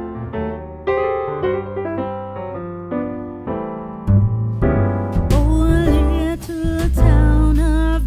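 Background music: electric piano chords over a bass line, with a singing voice coming in about five seconds in.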